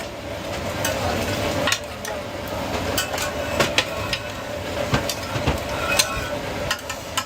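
Food-stall kitchen work: irregular clinks, scrapes and knocks of utensils and containers over a steady frying hiss, with a faint steady hum underneath.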